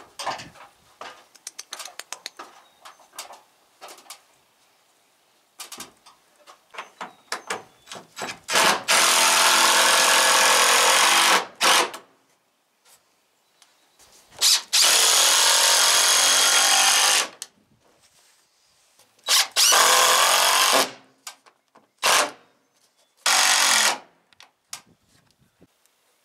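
Cordless drill driving screws into timber in repeated runs: three long runs of two to three seconds each, then two short bursts near the end. Before them come several seconds of faint scattered clicks.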